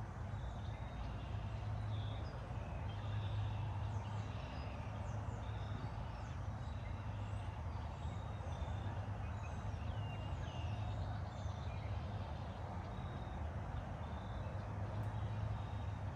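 Outdoor ambience: many small birds chirping on and off over a steady low rumble.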